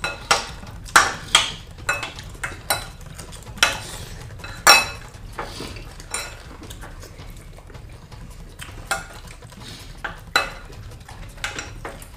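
Eating utensils clinking and knocking against dishes in quick, irregular strikes, thick during the first five seconds and more spaced out after.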